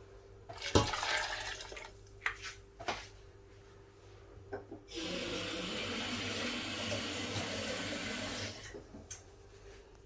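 A knock and some clatter, then water pouring steadily into a cooking pot for about three and a half seconds, starting about halfway through and stopping suddenly.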